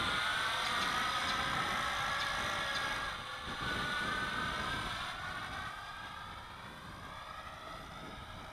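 Toy quadcopter's four motors and propellers buzzing in flight, the pitch wavering up and down as the throttle changes and fading as it flies farther away. A low wind rumble sits under it.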